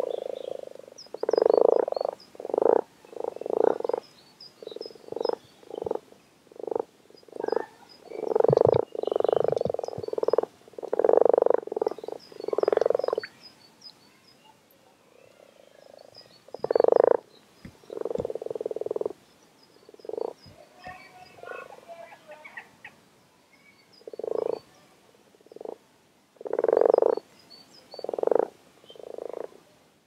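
Chorus of common frogs croaking at a breeding pond: many low, purring croaks in irregular bursts, some overlapping, with a brief lull about halfway through.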